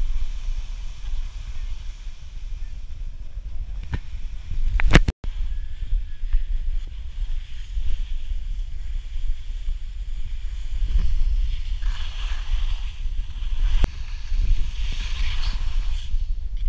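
Wind buffeting the microphone of a camera worn by a skier heading downhill: a steady low rumble with a light hiss. A few sharp clicks come about five seconds in, and the hiss swells briefly twice later on.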